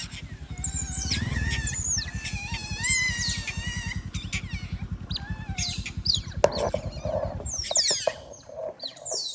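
Pet otters chirping and squeaking, a run of high, quick calls that slide down in pitch, dense at first and again near the end. Underneath, a low rapid pulsing runs until about three-quarters of the way through, then stops.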